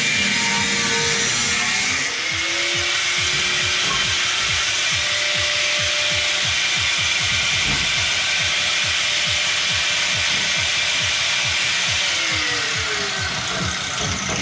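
Power tool cutting into the rusted sheet steel of a car body. It makes a steady, harsh noise, and its pitch shifts slightly a couple of times as it bites.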